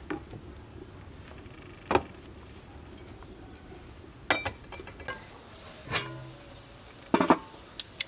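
Scattered clinks and knocks of cooking utensils, about six in all, spread over several seconds. The last few come close together near the end: metal tongs knocking against a metal pot.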